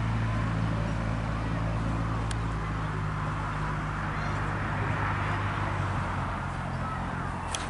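Grumman AA-5A Cheetah's four-cylinder Lycoming engine running steadily at low power as the plane comes in to land, easing a little in the second half. A few sharp clicks come near the end.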